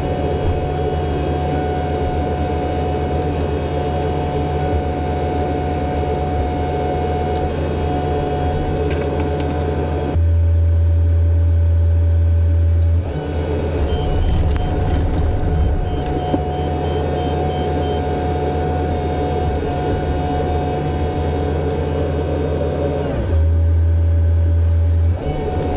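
Volvo excavator's diesel engine running steadily, heard from inside the cab, with a steady whine over the engine note. Twice, about ten seconds in and again near the end, the note drops in pitch and turns louder and deeper for two to three seconds before returning.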